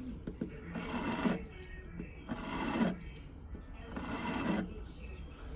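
Hand metal file rasping across an 18-karat gold ring in three slow strokes, about one and a half seconds apart, smoothing a soldered-in piece flush with the band.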